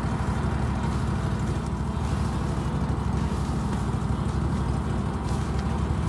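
An engine running steadily at one speed, a low even drone that does not change.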